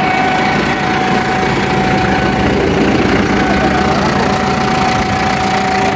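Turbocharged diesel tractor engine idling steadily, with a steady whine over the rumble.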